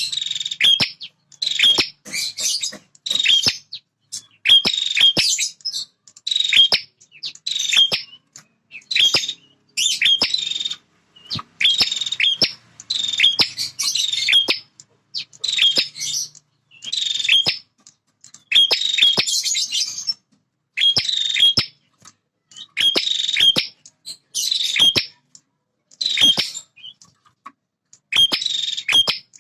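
Male prinia (prenjak) singing: a fast, high song phrase of about a second, repeated over and over with short gaps, roughly one every second and a half, with sharp clicks between the phrases.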